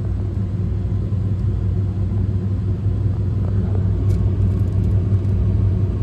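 York rooftop gas package unit running steadily in first-stage (low-fire) heat: a constant low hum and rumble from its burners and fans.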